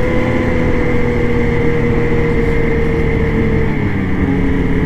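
Ski-Doo Renegade 600R E-TEC two-stroke snowmobile engine running at a steady speed, its pitch holding level, with a slight drop about four seconds in.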